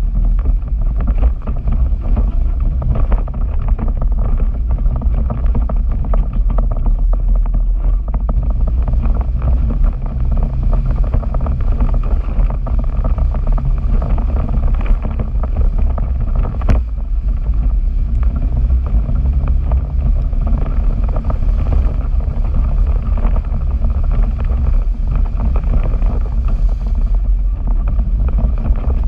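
Arctic Cat Wildcat Sport 700 side-by-side's single-cylinder engine running steadily as it drives through a shallow rocky creek, heard from a camera mounted on the vehicle with wind buffeting the microphone. Once, partway through, a single sharp knock.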